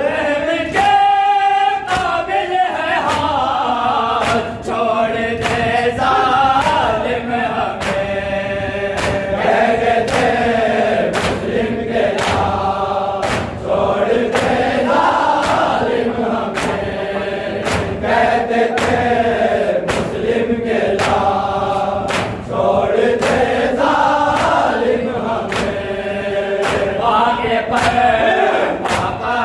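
Group of men chanting a noha, a Shia lament, in unison to a steady beat, with rhythmic chest-beating (matam) striking about once a second.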